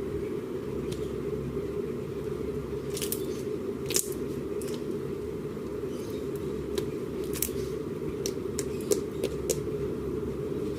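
Slime being squeezed and poked, giving irregular small crackling clicks and pops over a steady low background hum.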